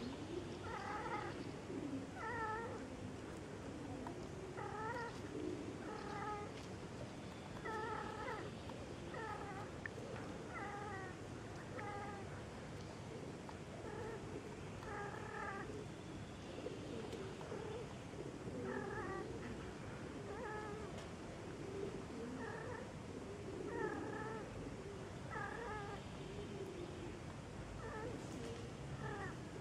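Domestic cats caterwauling during mating: a string of short, repeated calls over a lower, wavering yowl.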